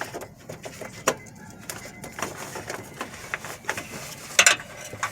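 Irregular plastic clicks and rattles as a headlight bulb is worked loose from the back of a 2010 Honda Accord's headlight housing, with a sharp snap about a second in and the loudest clicks a little past four seconds in.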